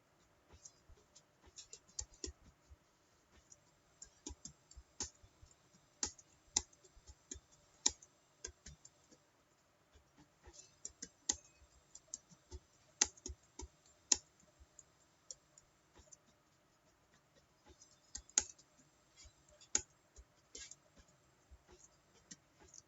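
Computer keyboard being typed on: irregular, uneven clicks of keystrokes, typing at about 44 words a minute.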